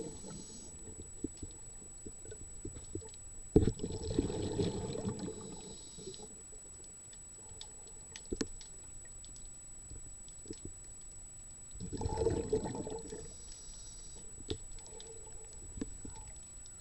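Underwater breathing of a scuba diver through a regulator: two exhalations of bubbles gurgling, each followed by the short hiss of an inhale, with faint scattered clicks between breaths.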